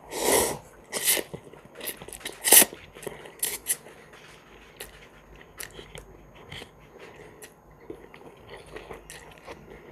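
A person slurping and chewing instant cup noodles. There is a loud slurp right at the start and another about two and a half seconds in, then a run of soft wet chewing clicks and smacks.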